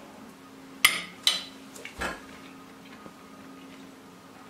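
Fork clinking against a plate while eating: two sharp clicks about a second in, then a few softer taps and a dull knock, over a faint steady hum.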